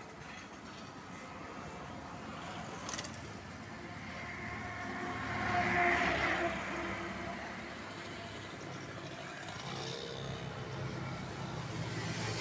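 Road traffic going by, with one motor vehicle passing close and loudest about halfway through.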